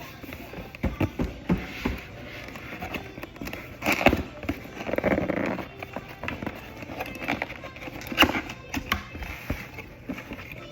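Scattered clicks and knocks of small items and packaging being handled during an unboxing, the sharpest about 4 and 8 seconds in, over faint background music and voices from a TV.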